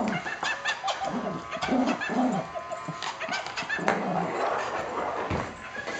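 Yorkshire terrier whimpering and making short whiny play noises while wrestling a plush toy, with clicks and scuffles on a hardwood floor.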